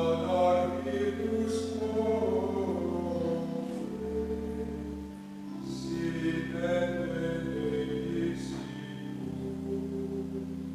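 Voices singing a slow hymn over long, held low accompanying chords that shift every few seconds.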